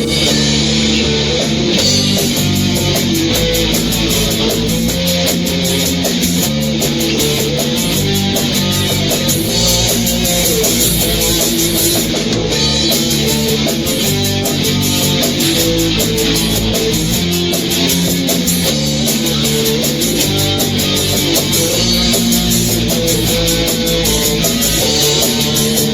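Instrumental break of a rock song: an electric guitar plays the melody over bass and a steady drum beat.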